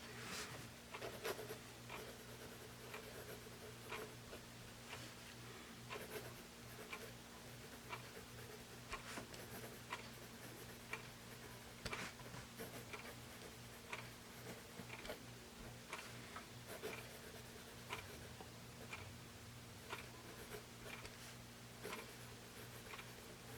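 Pentel Graph Gear 500 mechanical pencil with 0.7 mm lead writing on paper: faint, irregular scratching strokes with small ticks as the lead meets the page.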